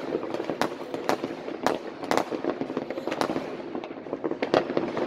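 Many fireworks going off at once: a dense, irregular run of sharp bangs and crackles from bursting rockets, some loud and close, over a steady din of distant ones.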